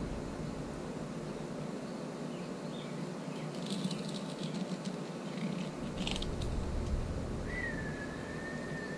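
Fillet knife cutting into an Atlantic bonito: faint slicing and scraping with a few light clicks over a steady background hiss. Near the end a single high, drawn-out whistled note sounds for about a second and a half.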